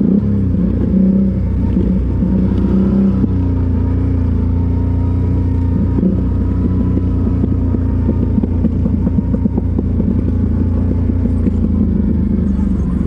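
ATV engine running under way on a rough dirt track. Its pitch shifts for the first few seconds, then holds steady, with frequent knocks and rattles throughout.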